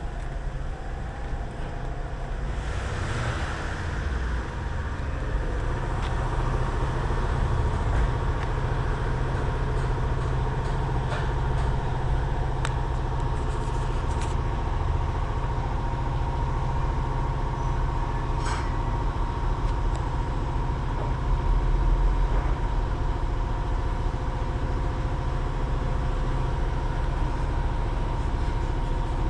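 Compressor running: a steady low rumble with a constant faint whine above it, swelling briefly a little past the middle, with a few faint clicks.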